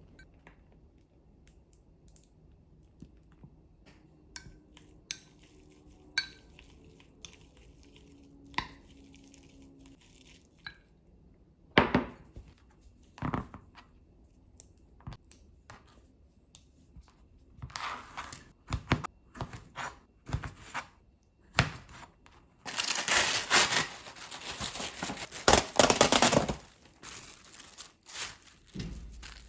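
Hands-on kitchen handling noises while a sandwich is made: scattered light clicks and knocks, a couple of sharper knocks around twelve seconds in, then a dense rustling, tearing noise for several seconds near the end.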